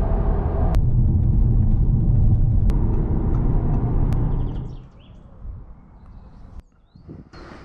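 Audi A6 engine and road noise heard from inside the cabin while driving, a steady low rumble with a few sharp clicks. It drops away about four and a half seconds in to much quieter outdoor sound with faint bird chirps.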